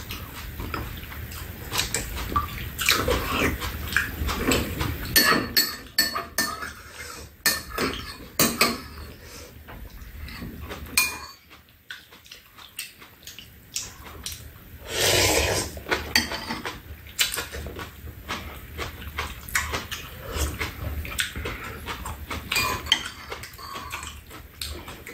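Metal spoons and chopsticks clinking and scraping against ceramic bowls during a meal, with chewing and slurping of bean sprout soup and rice. The clinks come irregularly, several a second at the busiest.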